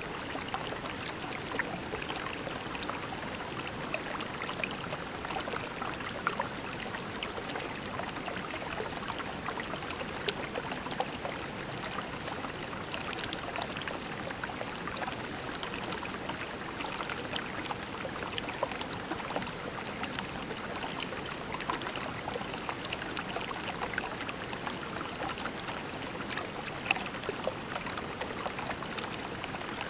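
Small creek flowing over pebbles: a steady babble of running water, dotted with many small trickles and splashes.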